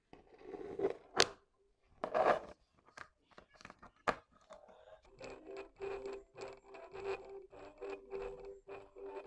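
Scraping and two sharp clicks as a ring magnet is handled and fitted over a copper coil wound on an iron bolt, the magnet snapping on about four seconds in. From about five seconds in, faint music with a regular beat plays through this homemade coil-and-magnet speaker.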